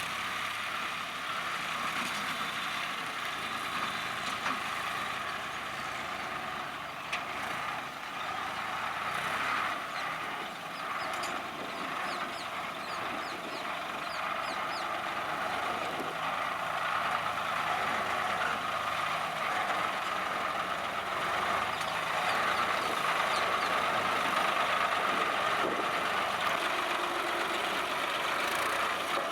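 Swaraj 960 FE tractor's diesel engine running steadily, a little louder in the second half, with a few faint high chirps around the middle.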